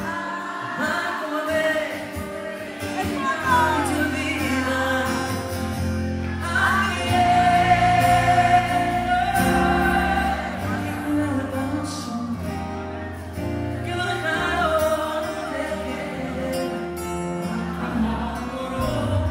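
Male lead singer singing a song live into a microphone, backed by a band with acoustic guitar and a steady bass line, heard from the audience.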